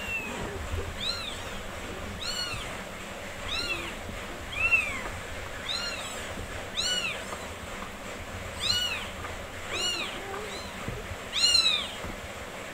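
Four-day-old kittens mewing: about a dozen short, high-pitched cries, roughly one a second, the loudest about a third of the way in and near the end.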